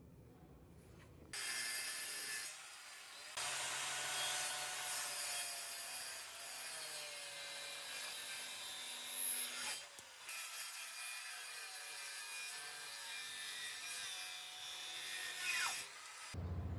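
A tool working wood with a continuous abrasive scraping. It starts about a second in, breaks off briefly around three seconds and again around ten seconds, and stops just before the end.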